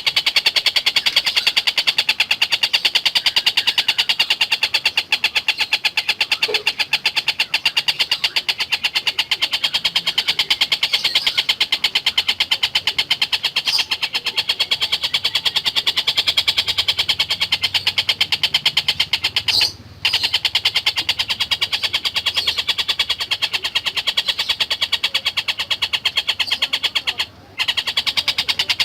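Tengkek buto (a kingfisher) calling in a long, rapid chattering trill of densely repeated high notes, broken by two brief pauses, one about two-thirds through and one near the end.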